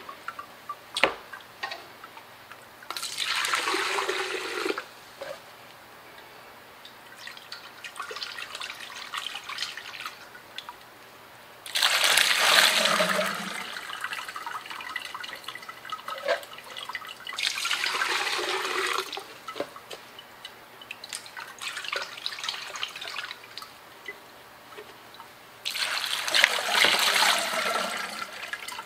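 Water and grey grit slurry poured from a plastic tumbler barrel onto tumbled rocks and ceramic media in a sieve, splashing in four pours of a second or two each, the second the loudest, with dripping between. This is the rinse after a 120/220 silicon carbide grit tumble.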